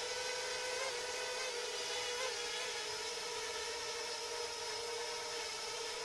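Parrot Bebop 2 quadcopter hovering: a steady propeller whine over a hiss of rushing air, its pitch wavering only slightly as the drone holds position.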